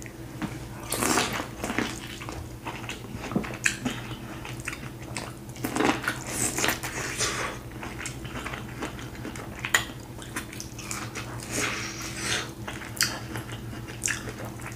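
Close-up eating sounds of corn on the cob: irregular crisp crunches as kernels are bitten off the cob, and chewing between bites, over a steady low hum.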